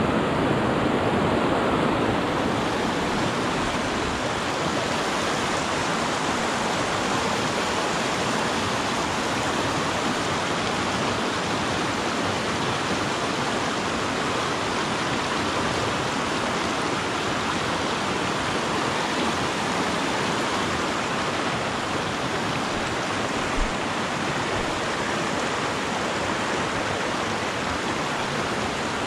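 Fast mountain creek rushing steadily over rocks and small rapids.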